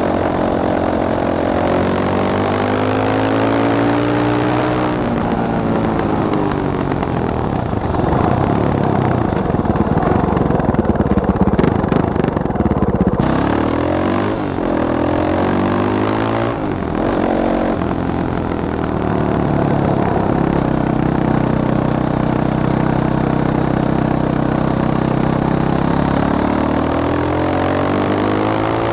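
Fantic Caballero 500 Flat Track motorcycle's single-cylinder engine running, its pitch rising and falling as the throttle is opened and closed. It is loudest and hardest in the first half, drops in pitch sharply a few times around the middle, then holds a steady note for several seconds near the end.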